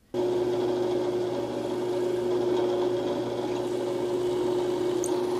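Drill press switched on just after the start, its motor running with a steady hum while a twist bit drills into a wooden beam.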